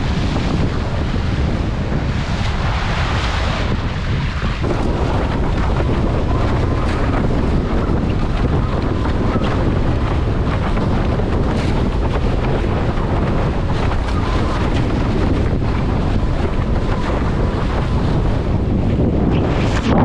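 Heavy wind buffeting the microphone over the rush and hiss of water under a Patrik F-Race windsurf board planing fast across chop, with many small slaps and spray hits from the hull.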